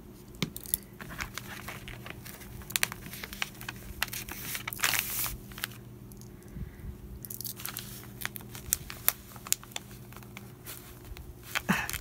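Paper pattern rustling and crinkling, with scattered small clicks and taps, as it is handled and pinned with straight pins onto quilted fabric.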